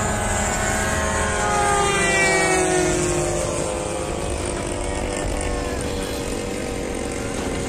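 Engines of several radio-controlled warbird model airplanes droning in the air. One passes by with its pitch sliding down about two to three seconds in.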